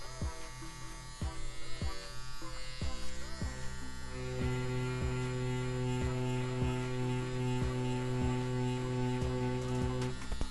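CNC P6 rotary tattoo pen running with an 11 magnum needle set on a 3-stroke at about 9.5 volts, giving a steady electric buzz as it packs shading into practice skin. The buzz is weaker for the first few seconds and steadier from about four seconds in.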